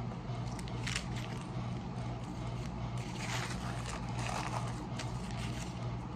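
Chewing and mouth noises while eating a foil-wrapped sandwich, with a sharp click about a second in and soft rustling of a paper napkin wiped across the mouth around three to four and a half seconds in, over a steady low hum.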